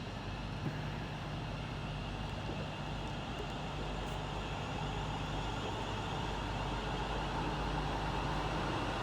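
East Midlands Railway train in the station, a steady running hum and whine that slowly grows louder.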